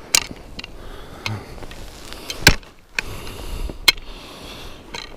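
A few sharp knocks over a steady low rustle; the loudest knock comes about two and a half seconds in, with another just over a second later.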